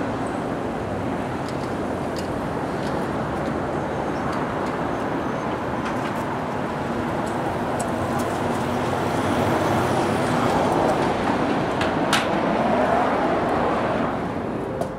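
Steady city street traffic noise that grows louder for a few seconds in the second half, with one sharp click near the end.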